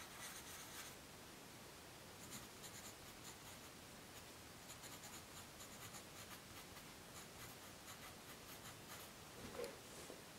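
Faint scratching of pencil lead on paper: a coloured pencil shading a swatch for about the first second, then a pencil writing a short label in light, scattered strokes.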